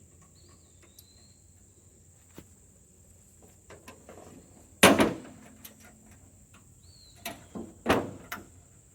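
Latches on the blade-housing cover of a Frontier OS31 sawmill being snapped shut: a loud clack about halfway through with a brief ring, then a few quicker clacks near the end, the last of them the loudest.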